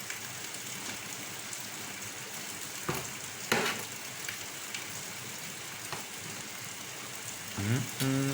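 Food frying in hot oil, a steady sizzle, with a few sharp clicks about three seconds in.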